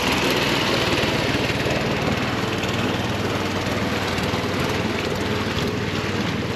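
Small boat's motor running steadily at cruising speed, a fast even engine drone.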